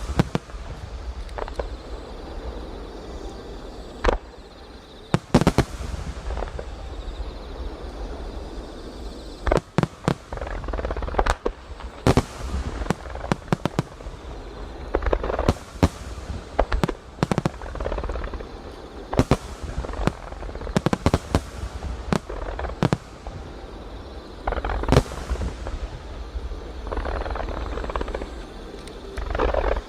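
Aerial fireworks display: shells bursting with many sharp bangs, some in quick clusters, with stretches of crackling between them.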